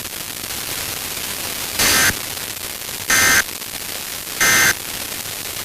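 Emergency Alert System end-of-message code: three short, identical screeching data bursts about 1.3 seconds apart, over steady radio static. The bursts mark the end of the broadcast warning.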